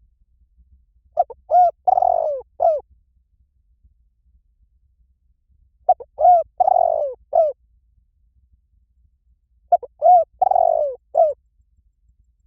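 Spotted dove cooing: three song phrases about four seconds apart. Each phrase is a couple of short notes, a longer falling coo and a short final note.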